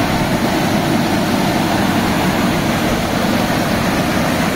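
Drying fans on a touchless automatic car wash gantry blowing air, a loud, steady rush with no change.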